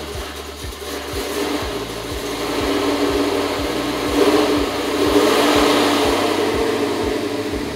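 Pickup truck engine with open headers and a Comp Cams 480 Magnum bracket camshaft, running with a regular low lope about twice a second. It gets louder about halfway through as the truck moves off.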